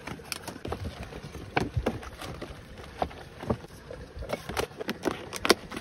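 Irregular small knocks, clicks and rustles of camping gear being handled and packed: a nested cook pot set in a mesh drawstring bag, then a plastic-wrapped pack.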